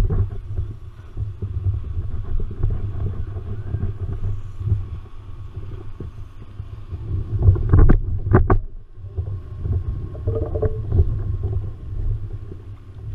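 Wind buffeting the microphone of a camera on an open kayak, a gusty low rumble, with two or three sharp knocks a little past the middle.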